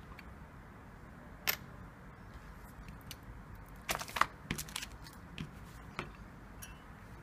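Small clicks and knocks of a metal circuit-board holder being handled and set down on a silicone work mat: one sharp click about a second and a half in, a loudest cluster of knocks around four seconds, then a few lighter taps.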